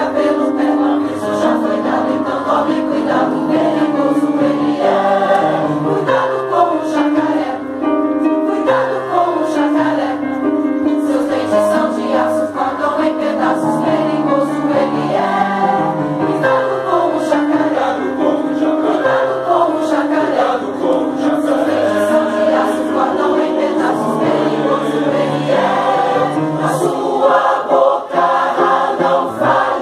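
Mixed choir of mostly women's voices singing a Christmas cantata in parts, sustained and continuous.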